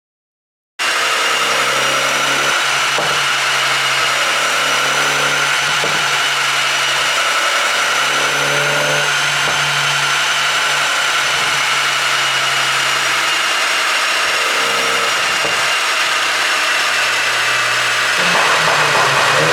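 BMW G20 330i's turbocharged 2.0-litre four-cylinder engine running at a steady speed after cutting in abruptly just under a second in; its note changes and grows slightly louder near the end.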